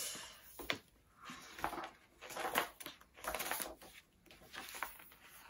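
Paper pages of a large hardcover comic album being leafed through: a series of short rustles, with a sharp tick a little under a second in.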